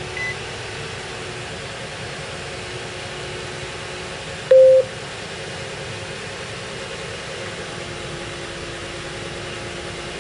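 Nissan Quest's 3.5 L V6 idling steadily, heard from inside the cabin, run for a minute after a fresh oil and filter change. A single short, loud beep sounds about four and a half seconds in, with a faint short high beep at the very start.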